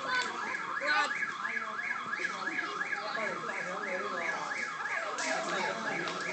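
Car alarm sounding with a fast, even warble of repeated rising-and-falling sweeps, about three a second, broken by a few sharp cracks.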